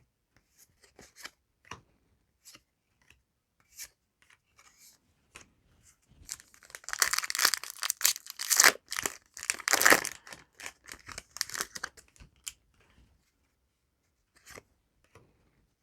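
A Yu-Gi-Oh! booster pack wrapper being torn open and crinkled, in a dense stretch that starts about six seconds in and lasts about six seconds. Light scattered clicks of cards being handled come before and after it.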